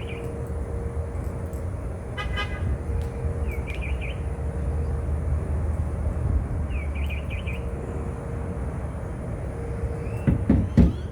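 Outdoor ambience: a steady low rumble, with a small bird chirping in short bursts several times. A few low knocks come near the end.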